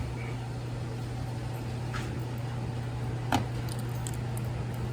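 A steady low hum with a few faint, sharp clicks, one about two seconds in and one a little after three seconds.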